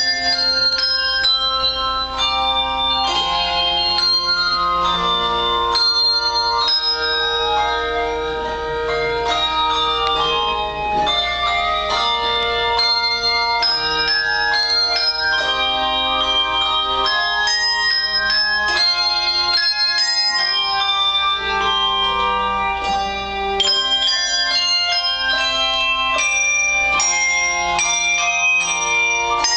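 Handbell choir playing: hand bells struck in quick succession as chords and runs, each note ringing on under the next.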